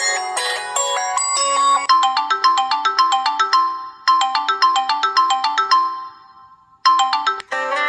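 Samsung Galaxy S4 preloaded ringtone playing: a bright melody of quick chiming notes that repeats a short phrase and fades out about six seconds in. Another ringtone starts just before the end.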